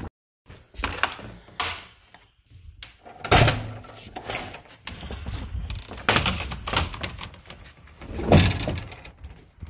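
A sliding door being handled and opened, with a series of knocks and thumps; the loudest come about three seconds in and again near the end.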